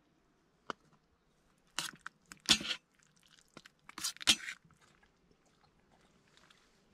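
Metal spoon clinking and scraping in a metal camping mug as sliced tofu sausage is stirred into noodles: a click, then a few short scrapes, the loudest about two and a half and four seconds in.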